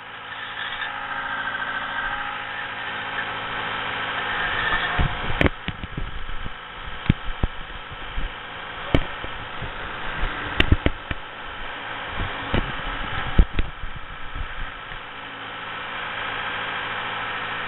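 A compact construction machine's engine running at a steady idle, with a series of sharp knocks and clunks from about five to fourteen seconds in.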